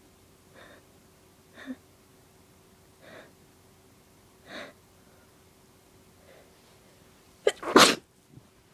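A woman's allergy sneeze: several soft breaths spaced a second or so apart build up to one loud, sharp sneeze near the end.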